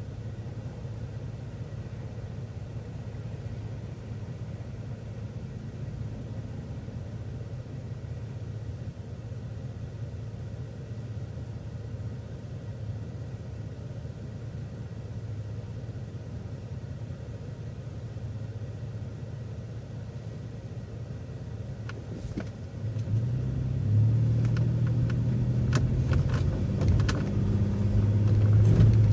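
City transit bus engine running with a steady low hum, heard from inside the bus; about 22 seconds in it gets clearly louder and more pitched as the bus pulls under power, with a few knocks and rattles.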